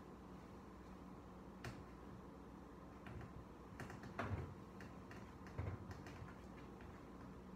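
Faint, irregular small clicks and taps, a handful of them, loudest about four seconds in and again a little before six seconds, over a low steady room hum.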